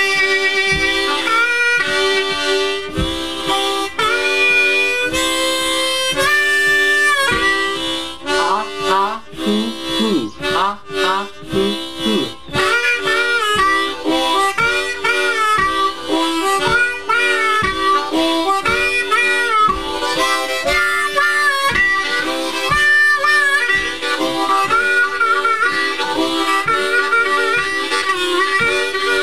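Two diatonic harmonicas in C chugging a rhythm on holes 1 and 2, two draw chords then two blow chords ("ha ha, hoo hoo"), repeated to a steady beat. One player cups and opens his hands around the harp, colouring the chords.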